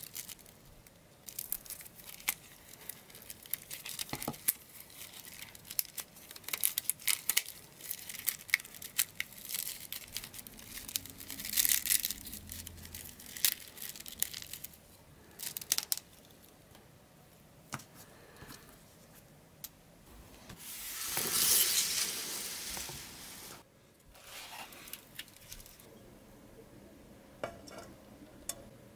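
Wooden matchsticks clicking and rattling as they are handled and bundled with rubber bands, with cardboard matchboxes rustling. A longer, louder rustling swell about three-quarters of the way through.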